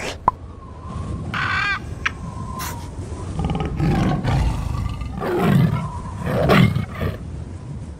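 Intro sound effects: a shrill bird call about a second and a half in, then a tiger roaring, rough and low, through the second half.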